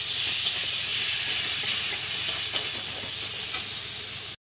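Tomato pieces sizzling in hot mustard oil with fried onions and ginger-garlic paste in a metal kadai, stirred with a metal spatula that clicks against the pan a few times. The sound cuts off suddenly just before the end.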